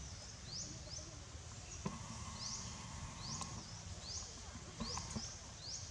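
A bird repeating a short, high, rising chirp about once a second, some in pairs, over a low background rumble of the surroundings.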